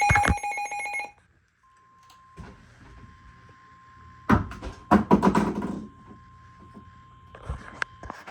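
Emergency alert attention tone: a loud, harsh, rapidly pulsing alarm that cuts off about a second in, followed by a faint steady tone. Several knocks and a loud clatter are heard around the middle.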